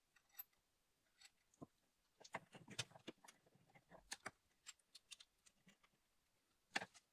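Faint, scattered metallic clicks and ticks as small bolts are handled and threaded in by hand to secure the camshaft locking tools on the cylinder head. The clicks are busiest in the middle.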